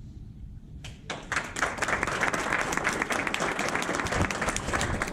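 Audience applauding, starting about a second in with a few claps and quickly swelling into steady, dense clapping.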